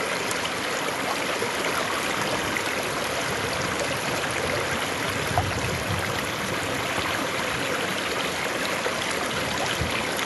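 River water flowing steadily, an even rushing and babbling without pause.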